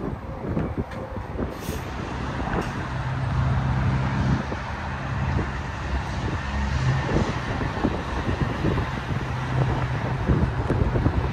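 Interstate highway traffic going by: tyre and wind noise with a low, steady engine drone that comes in about three seconds in, fades, and returns near the end.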